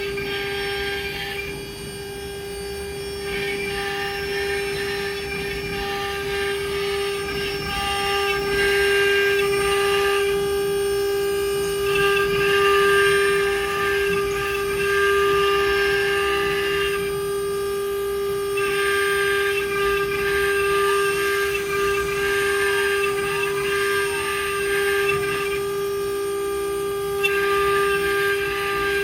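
CNC wood router's spindle running with a steady high whine, while the cutter works wood on the rotary axis. The cutting noise rises in stretches of a few seconds and drops away between passes.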